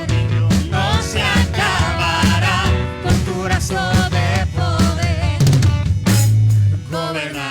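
A live band playing a worship song with drum kit, bass and melody lines, with a singer's voice or a wavering lead instrument over it.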